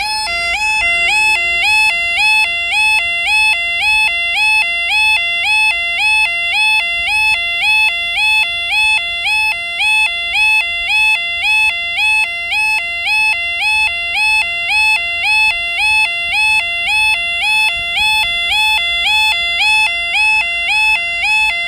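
UK level crossing warning alarm (yodel alarm) sounding continuously: a two-note warble rising from a lower to a higher tone about twice a second. It signals that the crossing is closed for a train.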